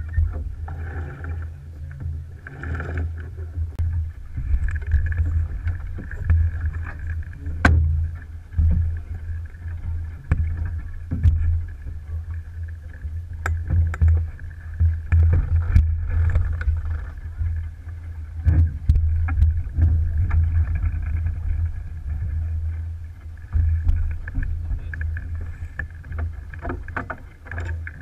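Alberg 30 sailboat under sail: water rushing along the hull over a gusting low rumble of wind, with scattered sharp knocks from on board.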